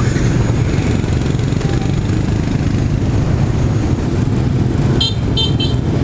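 Motorcycle and scooter engines idling with a steady low rumble. About five seconds in come three short horn toots in quick succession.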